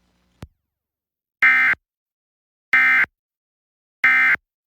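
Emergency Alert System end-of-message data bursts: three identical short, harsh digital squawks about a second and a third apart, marking the end of the required monthly test. A faint click comes just before them.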